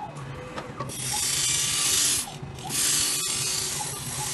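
Phone screen grinding machine running: a low steady motor hum with a loud hissing scrape of the pad on the screen glass, starting about a second in and breaking off briefly partway through.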